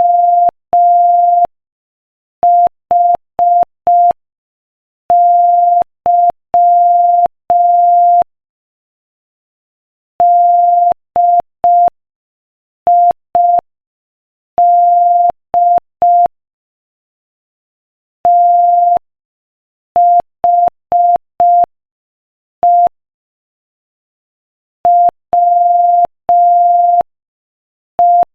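Morse code sent as a pure sine-wave beep, keyed on and off in short dots and long dashes at 5 words per minute. The dots and dashes come in groups, with gaps of about two seconds between them.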